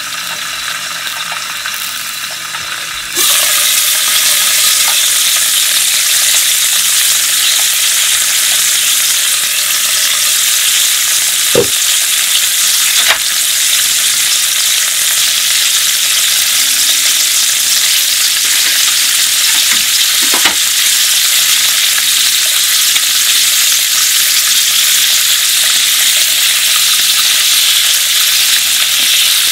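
Clams and mussels sizzling in hot olive oil in a frying pan, muffled under a glass lid at first, then much louder once the lid is lifted about three seconds in. A few knocks follow as prawns and squid go into the pan.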